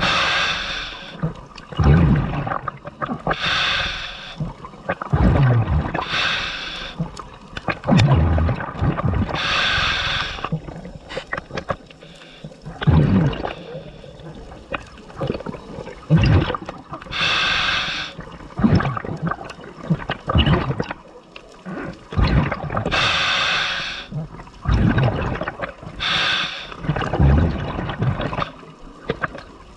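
Scuba diver breathing through a regulator underwater: each inhale is a hiss of about a second, and each exhale is a rush of gurgling bubbles, the two alternating every few seconds.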